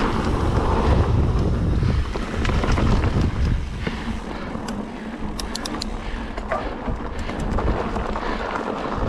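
Mountain bike descending a dirt trail: wind buffets the action camera's microphone over tyre and trail rumble. About four seconds in, as the bike rolls onto a gravel road, the buffeting drops and a few sharp clicks come through.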